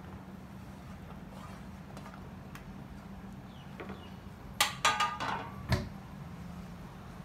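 Cubes of bottle gourd being slid off a pan into a clay cooking pot and handled: a few faint clicks, then a short cluster of sharp clattering knocks about four and a half to six seconds in, over a steady low hum.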